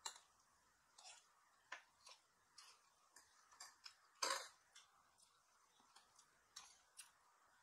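Quiet eating sounds: irregular soft clicks and smacks from forks, hands and mouths at a shared meal, with one louder, longer noisy burst about four seconds in.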